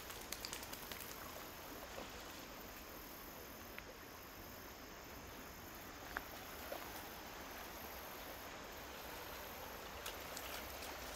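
Steady, faint rush of a storm-swollen creek, with a few small ticks scattered through it.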